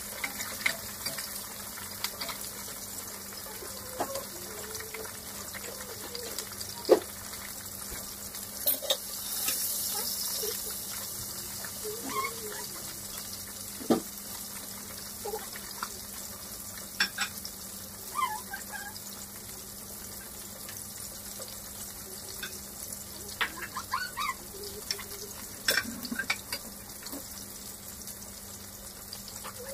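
Whole fish frying in hot oil in a wok: a steady sizzle with scattered crackles and sharp pops of spattering oil.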